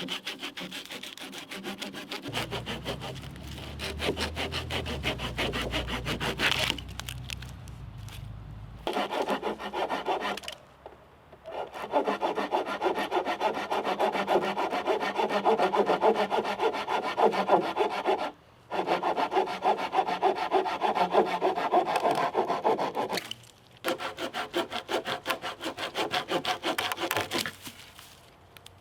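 A hand saw cutting through a large log for firewood in rapid back-and-forth strokes, with brief pauses about ten, eighteen and twenty-three seconds in.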